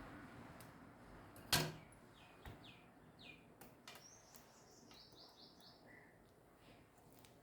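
A single sharp knock about a second and a half in, then a few faint ticks and runs of short, high bird chirps.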